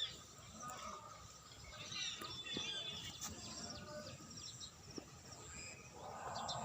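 Small birds chirping, many short calls scattered throughout over faint outdoor background noise.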